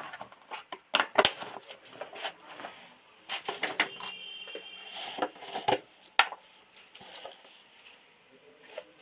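Irregular light clicks, clinks and rustles of kitchen handling, thinning out near the end.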